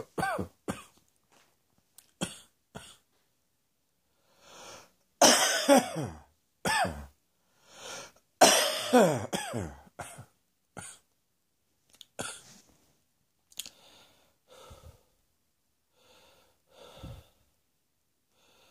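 A person's morning reflux cough: a run of harsh coughs with drawn breaths between. Two long, loud fits come about five and eight and a half seconds in, their voice falling in pitch. After that come quieter single coughs and breaths, fading toward the end.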